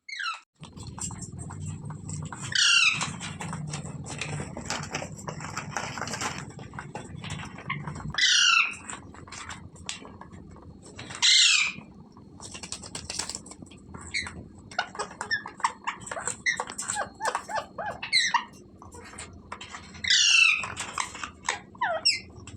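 Pet green parrot calling: several loud, harsh calls a few seconds apart, with softer chattering calls and short clicks in between.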